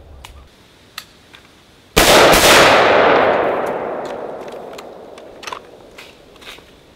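A single gunshot about two seconds in, its report rolling away for about three seconds, with a few light metallic handling clicks before and after.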